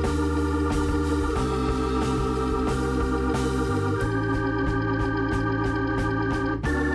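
Background music: sustained organ-like chords over a steady beat, the chords changing every couple of seconds.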